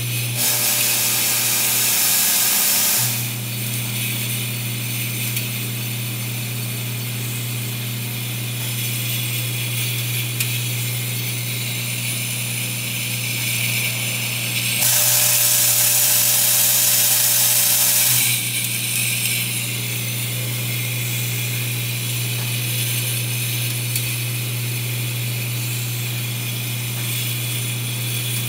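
Automated glass-vial handling line running: a vibratory bowl feeder hums steadily while glass micro vials rattle and clink along its track. Twice a loud hiss rises over it for about three seconds, near the start and about halfway through.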